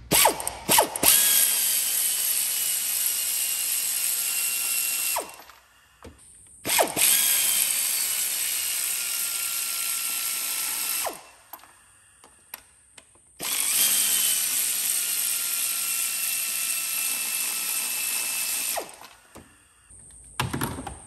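Cordless power ratchet with an extension and 12mm socket running out intake manifold bolts: three runs of about five seconds each, separated by short pauses. Each run starts with a click and has a whine that drops slightly in pitch as it goes.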